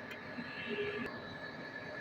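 Machinery running steadily: a constant high whine over an even mechanical hum.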